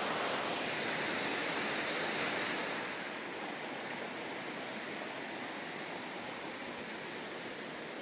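Rushing water of a waterfall, a steady hiss that turns quieter and duller about three seconds in.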